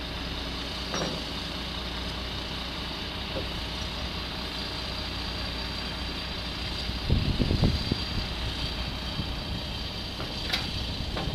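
Diesel work truck engine idling steadily, with a few low knocks about seven seconds in.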